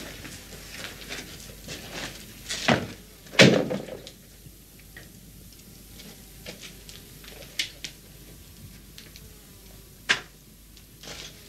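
A string of light clicks and knocks, with two louder thumps about two and a half and three and a half seconds in, the second one heavy and the loudest; a few more sharp clicks follow later.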